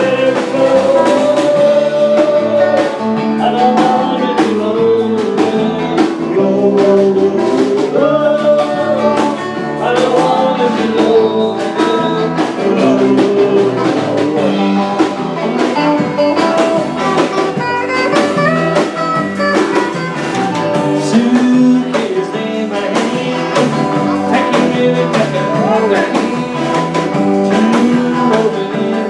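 Live band playing a song: a man singing into a microphone over electric guitar and a drum kit, with a steady dance beat.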